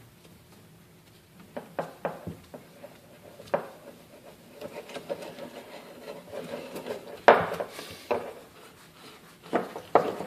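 Metal tool handling on a small-engine cylinder head: scattered clicks and knocks and a stretch of scraping as a valve spring compressor is worked to release a valve spring. One louder knock comes about seven seconds in.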